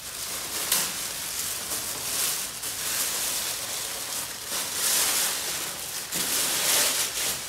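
Plastic bag wrapping crinkling and rustling as it is handled and pulled off an appliance, in uneven bursts.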